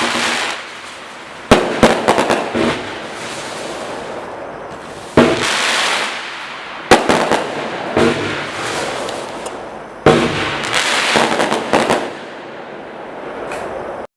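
A 54-shot consumer firework cake firing in volleys: sharp bangs every few seconds, each followed by a couple of seconds of dense crackling and hissing.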